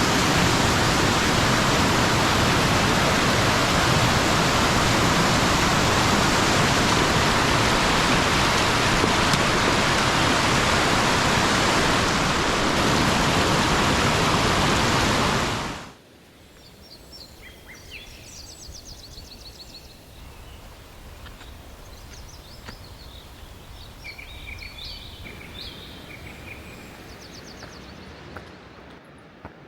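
Loud, steady rush of flowing river water that cuts off suddenly about halfway through. It gives way to quieter bird song: several birds chirping and trilling over a faint background.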